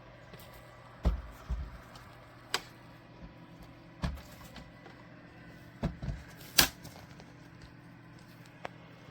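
A small plastic dehumidifier being handled: a series of separate knocks and clicks, about eight in all, the loudest a sharp click near the two-thirds mark. A faint steady hum sits underneath.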